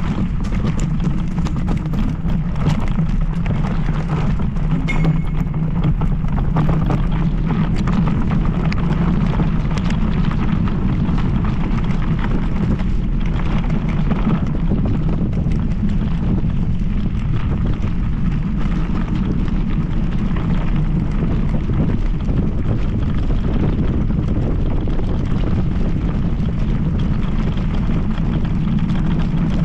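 Wind buffeting on the microphone of a moving electric scooter: a steady, heavy low rumble.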